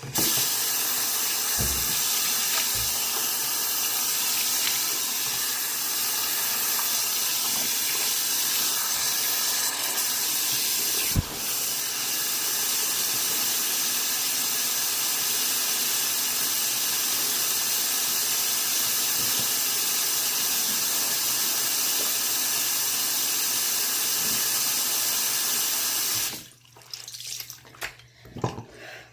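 A steady rush of running water, like a tap running, that starts abruptly and stops about 26 seconds in. A couple of faint knocks sound during it, and a few small knocks follow after it stops.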